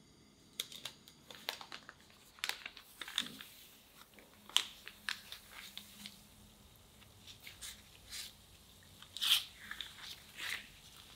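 Donut dough frying in oil at about 160 °C: the oil bubbles with scattered crackles and pops around the dough. The parchment paper under the donuts rustles as it is peeled out of the oil.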